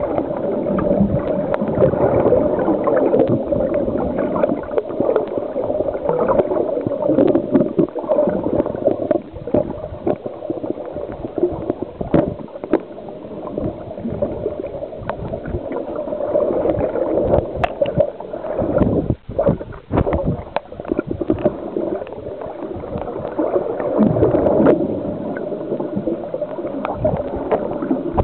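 Underwater gurgling and bubbling of water, muffled and dull, with many small clicks and crackles throughout and a brief drop about two-thirds of the way through.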